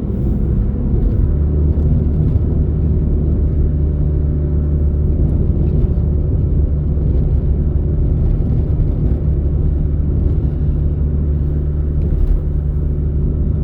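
Car driving at a steady pace: a constant low engine and road rumble with a steady hum.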